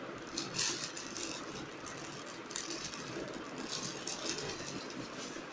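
Rustling and crinkling of dresses being handled, in a few short bursts.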